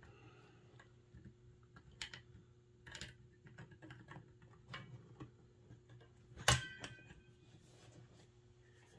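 Light, scattered clicks and taps of small metal air-rifle parts being handled during reassembly, with one sharper metallic clink about six and a half seconds in that rings briefly.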